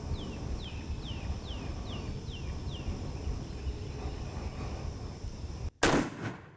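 A shotgun fired at a turkey: one sudden loud blast near the end. Before it, a songbird sings a run of quick descending whistled notes, about two or three a second, over a low steady rumble.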